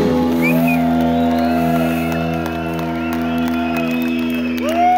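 Live heavy metal band holding a long sustained chord, with high held notes swelling over it and scattered cymbal hits; a crowd cheers underneath.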